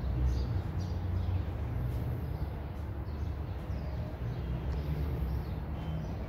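Outdoor background: a steady low rumble with faint, scattered bird chirps.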